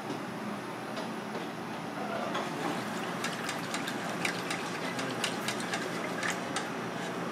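Wooden chopsticks stirring sauce in a steel bowl set in ice, giving quick irregular clicks against ice and metal from about a third of the way in, over steady background noise.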